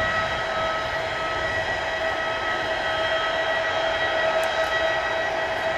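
Steady turbine whine from a parked Airbus A340-600's auxiliary power unit, several high tones held over a constant rush.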